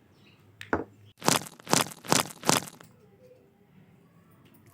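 A single click, then four sharp cracks in quick succession, a little over two a second, from small-scale craft work.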